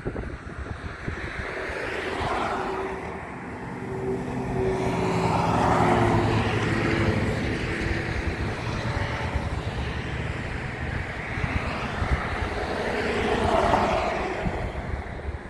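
Engine noise of a passing vehicle, swelling and fading: it builds to its loudest about six seconds in with a steady engine hum, eases, then swells again near the end.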